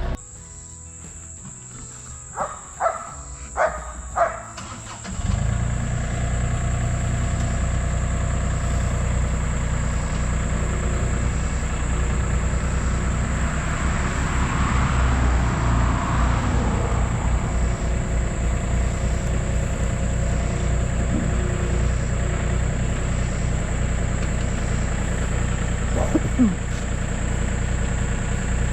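A few light metallic clinks, then about five seconds in the John Deere 3025E tractor's diesel engine comes in abruptly and runs steadily. There is a short squeak near the end.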